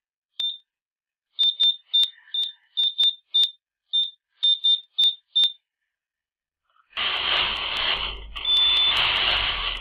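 Brother electronic knitting machine's console beeping as the pattern-start code is keyed in: about a dozen short, high beeps over five seconds. After a pause, a loud sliding, rattling run of the knitting carriage across the needle bed in two passes, with one short beep during the second.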